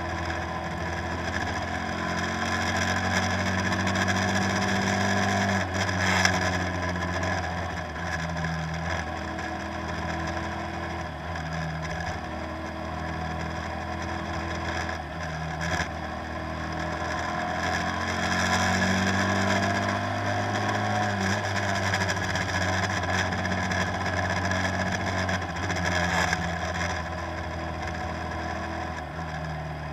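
A tour boat's engine running steadily with a low hum, under an even rushing noise that swells and eases.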